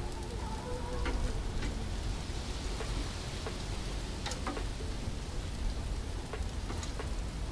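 Bacon-wrapped stingray pieces sizzling on a grill over an open fire: a steady crackling hiss, with scattered sharp clicks and pops as metal tongs turn them.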